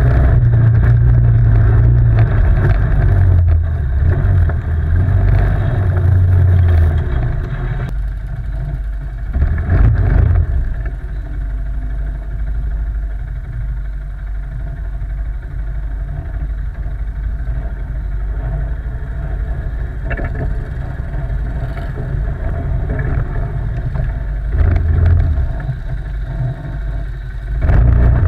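ATV quad engine running and revving, loudest for the first several seconds, then steadier, with short bursts of throttle about ten seconds in and again near the end.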